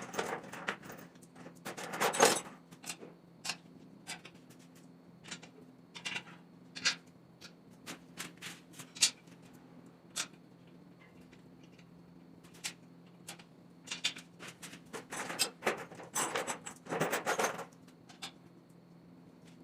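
Irregular clicks, clinks and knocks of metal tools and engine parts being handled during engine work, busiest about two seconds in and again in a run near the end, over a steady low hum.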